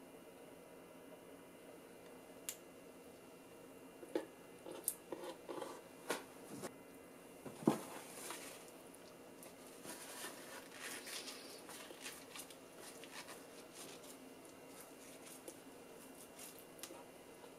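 Faint wet squelching and small clicks of hands working raw squid on a wooden cutting board: the beak is pulled out and the suckers are stripped from the tentacles. A scatter of light knocks comes about four to eight seconds in, followed by soft rustling.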